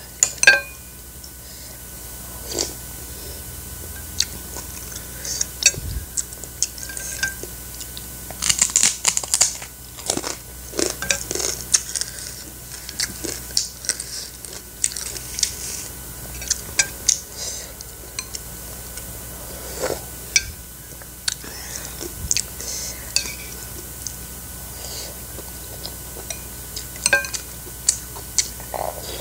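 A metal spoon clinking and scraping against a ceramic soup bowl and plate, with short ringing clinks scattered through, and close-up chewing of mouthfuls between them.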